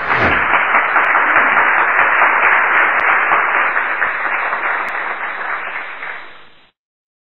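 Audience applause, a dense steady clapping that starts right away, fades over its last second or so and stops shortly before the end.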